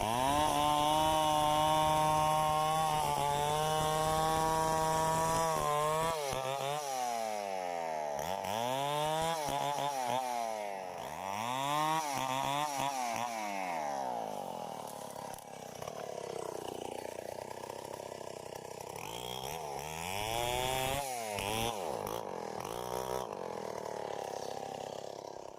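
Two-stroke Tecomec chainsaw running, held at a steady high speed for about six seconds. Then its engine speed falls and rises over and over, about every two seconds, as it works through the wood.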